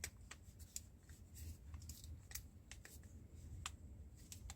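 Faint, scattered small clicks and light rustling of a handheld item being handled, over a low steady hum.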